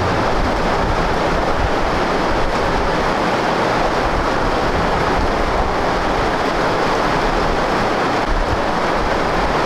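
Steady, loud rushing background noise with no clear pattern or distinct events.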